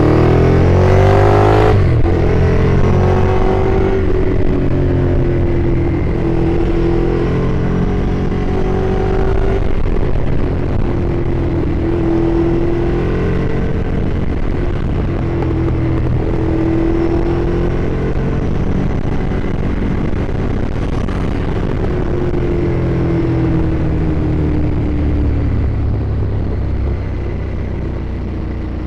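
Ducati Streetfighter motorcycle engine under way. It climbs steeply in pitch as it accelerates hard in the first couple of seconds, then runs at steadier revs that rise and ease off several times.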